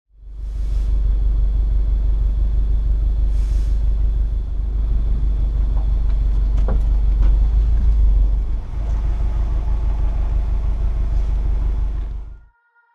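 Steady low rumble of a car running, heavy in the bass, with a few faint clicks partway through; it cuts off suddenly near the end.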